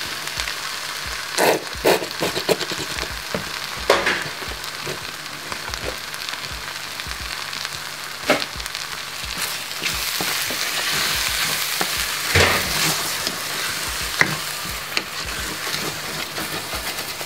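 Mince and kidney beans sizzling in a stainless steel saucepan of chili con carne as tomato sauce goes in, with a few short knocks against the pan. Stirred with a wooden spoon near the end.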